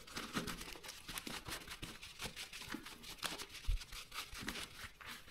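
Crumpled paper towel crinkling and rubbing over leather boxing gloves as they are wiped down after a cleaning spray, a quiet, irregular run of small crackles.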